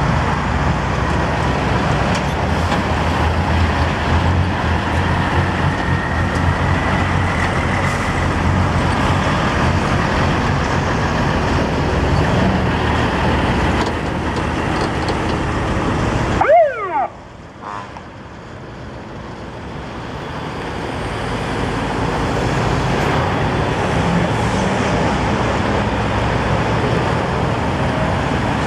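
Fire engines driving past one after another at low speed, their diesel truck engines running, with road traffic behind. About two-thirds of the way through there is a brief falling whine, then the sound drops away and builds again as the next vehicles approach.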